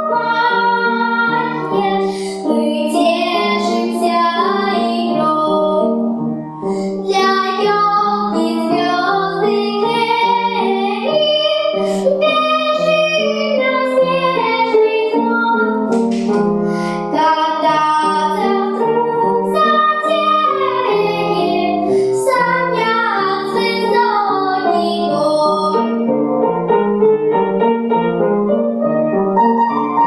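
Upright piano accompaniment with a young girl singing a children's song over it for part of the time.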